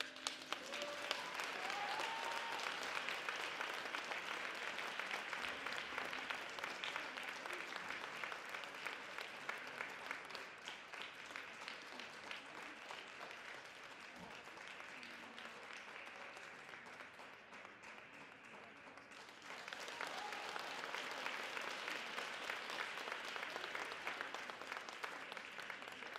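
Audience applauding, a dense patter of many hands clapping. It eases off through the middle, swells again about twenty seconds in, and tapers away at the end.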